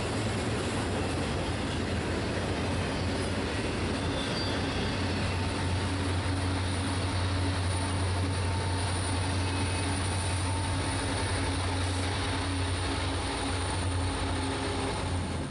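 Double-stack intermodal freight cars rolling past with steady wheel-on-rail noise. From about five seconds in, the diesel engines of two Norfolk Southern rear-end helper locomotives add a deep steady drone as they come by.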